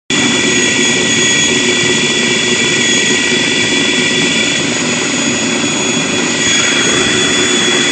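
Food processor motor running steadily at full speed, with a constant high whine over the churning of orange cake batter. The oranges are being puréed until no pieces are left.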